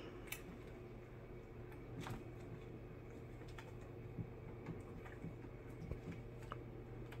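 Cats' paws and claws tapping and scuffing on a carpeted cat tree as they move about searching for treats: faint, scattered clicks a few seconds apart over a steady low hum.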